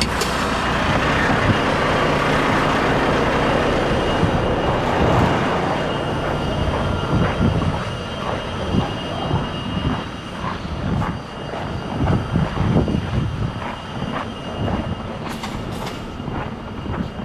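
Footsteps on snowy ground, a steady run of short crunching steps from about seven seconds in, over a continuous rumbling noise that is loudest in the first few seconds.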